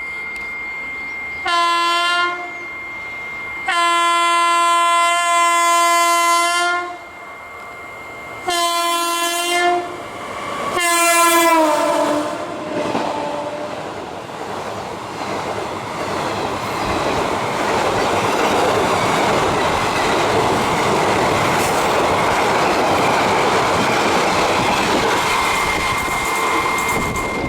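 WAP-5 electric locomotive's horn honking four times: a short blast, a long one, a medium one, then a last blast that drops in pitch as the locomotive goes by. The passenger coaches then roll past with a steady rumble of wheels on the rails that grows louder.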